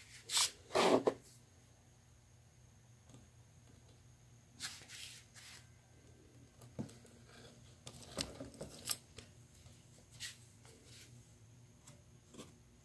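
Handling noise: short rustles and scrapes of a hand stroking the cat's fur and moving against the cardboard box, the two loudest in the first second and quieter ones scattered after.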